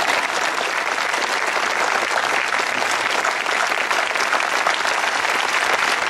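Large outdoor audience applauding, dense steady clapping.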